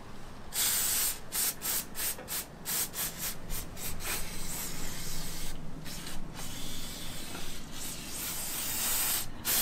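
Aerosol can of non-chlorinated brake cleaner sprayed onto a brake caliper to wash off brake dust: a run of short hissing spurts, then a longer spray in the second half.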